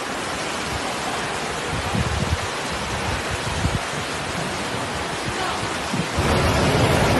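Floodwater rushing through a street: a steady, rushing noise of fast-moving water with a few low rumbles, growing louder about six seconds in.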